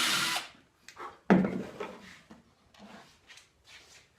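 Power drill boring a pilot hole in birch plywood, stopping about half a second in, followed by a few wooden knocks and clatter as the drawer and slide are handled, the loudest knock about a second and a half in.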